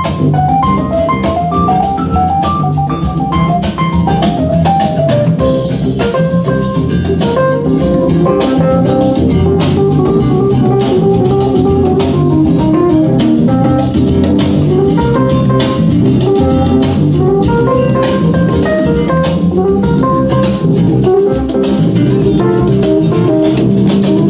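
Music with organ and keyboard over a steady drum beat.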